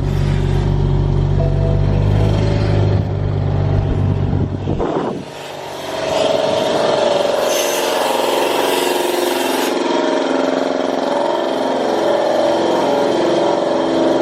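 A car engine runs with a low, steady hum, which cuts off abruptly about five seconds in. A different, higher-pitched wavering vehicle sound with a hiss follows.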